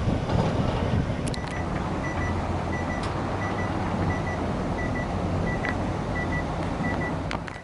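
Steady engine hum and outdoor noise with a faint high beep repeating about twice a second, like a reversing alarm on construction machinery. A few light clicks are heard.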